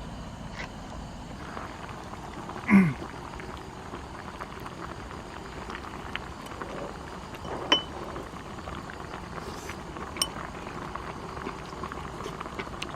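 Steady bubbling of water, with a few sharp clinks and one louder knock about three seconds in.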